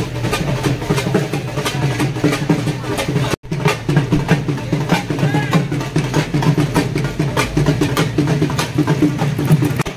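Loud music driven by drums and percussion, with many quick beats. The sound cuts out for an instant about a third of the way through.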